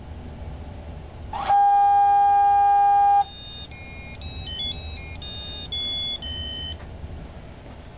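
Bio-Rad Experion priming station's electronic beeper: one long, loud steady beep about a second and a half in, then a short tune of quick beeped notes stepping up and down in pitch.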